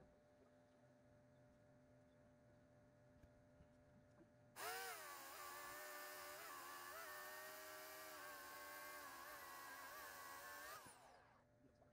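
Corded electric chainsaw switched on about four and a half seconds in, its motor whining steadily, the pitch dipping briefly as the chain bites into a log. It runs for about six seconds, then is released and spins down.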